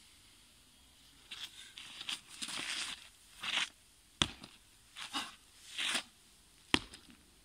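Nylon puffer jacket swishing and shoes scuffing on gritty dirt in short bursts with each taichi movement. Two sharp knocks come, one a little past halfway and one near the end.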